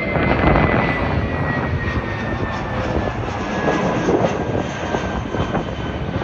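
Twin-engine jet airliner passing overhead: steady loud jet engine noise with a high whine that slowly falls in pitch as it goes by.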